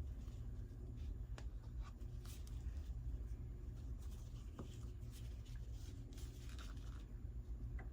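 Light scratching and scraping with a few small clicks, over a low steady hum.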